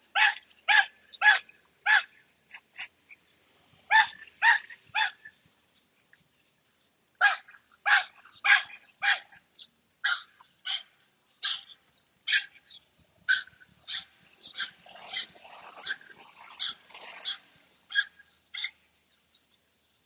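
A dog barking repeatedly in runs of short, sharp barks, with brief pauses between the runs.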